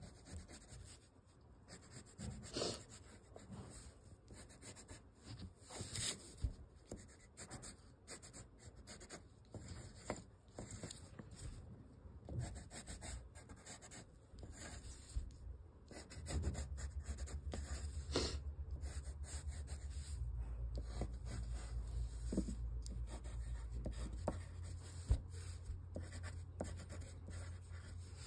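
A crayon scratching across paper in quick drawing strokes, with now and then a sharper scrape. About halfway through, a low steady rumble joins in underneath.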